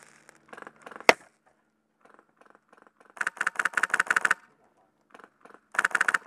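Polarstar HPA-engined A&K M249 SAW airsoft gun firing on full auto. A burst of about a dozen rapid shots in just over a second around the middle, and a shorter burst near the end. A single sharp crack comes about a second in, and fainter scattered shots fall between the bursts.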